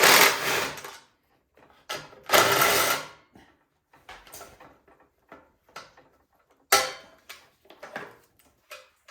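A hand tool loosening the bolts that hold a snowblower's carburetor assembly together, in two loud bursts of about a second each, followed by scattered clicks and knocks of metal parts and tools being handled, with one sharp knock near the end.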